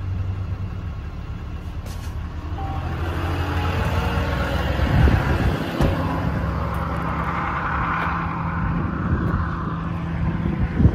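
A 6.7-litre Cummins turbo-diesel idling steadily with its power take-off engaged to drive the boom's hydraulic pump. Two knocks come about halfway through.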